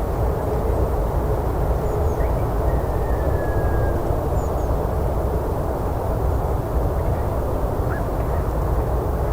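Forest ambience: a steady low rumbling noise with a few faint, short bird chirps and one thin drawn-out whistle.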